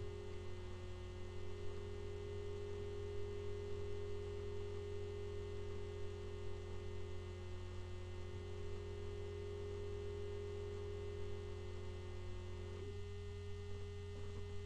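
Steady electrical mains hum with a fainter steady tone above it; about thirteen seconds in, the upper tone drops slightly in pitch and the hiss above it eases.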